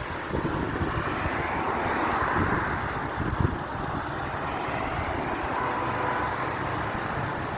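Strong wind blowing ahead of a sandstorm, a steady noise with irregular low thumps of wind buffeting the microphone.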